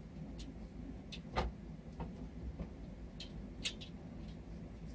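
A handful of faint, light clicks and taps from a nut being spun off its bolt by hand on a minibike engine, over a low steady hum. The sharpest click comes about three-quarters of the way through.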